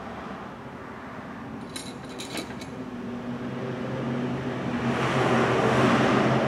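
A few light metallic clicks of small parts being handled, then a passing vehicle's engine and road noise that swells steadily, loudest near the end.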